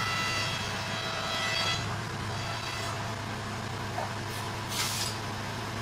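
A steady low engine hum, with a high whine over it that fades out in the first two seconds. A small click about four seconds in and a brief scraping hiss just after.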